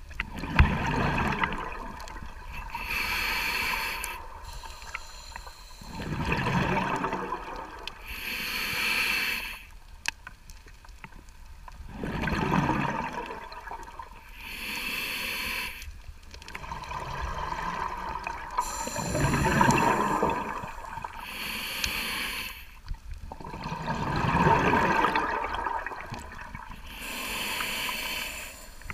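Scuba regulator breathing underwater: a hissing inhale alternating with a bubbling exhale, about every six seconds, five breaths in all.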